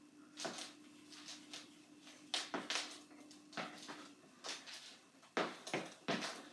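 Sneakers stepping and scuffing on a hardwood floor in irregular dance steps: a dozen or so short footfalls, louder and closer together in the second half. A faint steady hum sits underneath and stops about four seconds in.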